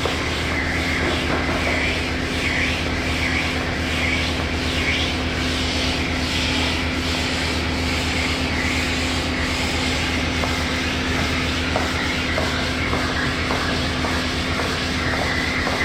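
Power sander running at a steady hum, levelling cured body filler on a minibus panel, its pad rasping against the filler in swells roughly once a second.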